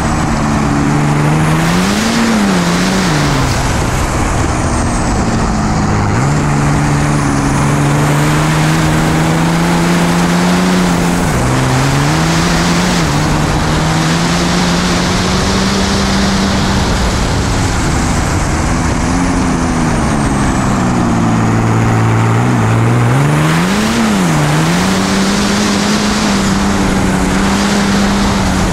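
A 6.7 Cummins race diesel with compound Garrett turbochargers, heard onboard the race truck under hard driving. Its note rises and falls through the bends, with several sudden drops in pitch, over constant wind rush.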